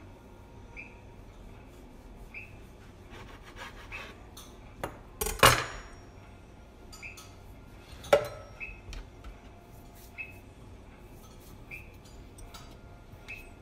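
Kitchen knife sawing and scraping through sandwich bread on a cutting board, then the knife clattering down on the counter with a brief metallic ring about five seconds in, and a sharp knock of handling a few seconds later. A faint short high chirp repeats about every second and a half in the background.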